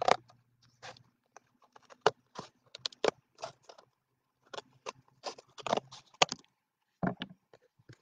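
Scissors cutting through a piece of cardboard: a run of short, irregular snips and scrapes.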